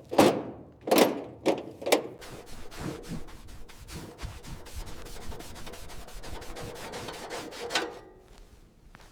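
Four heavy knocks in quick succession, then a few seconds of rapid, rhythmic rubbing that ends with one louder stroke.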